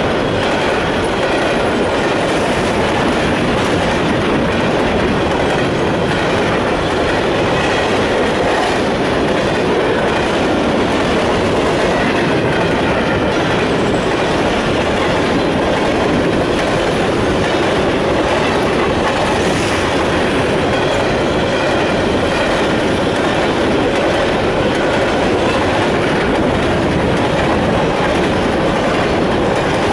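A Canadian Pacific freight train of covered grain hopper cars rolling past close by. The wheels rumble and rattle on the rails in a steady, unbroken run.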